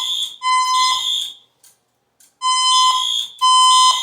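Fire alarm voice-evacuation speakers sounding their electronic alert tone between playings of the recorded evacuation message. The tone is a steady beep about a second long, repeated in groups of three with a pause of about a second between groups.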